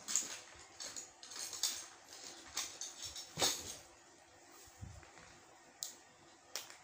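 Scratchy strokes and taps of writing, closely packed for the first three and a half seconds, then two single clicks near the end.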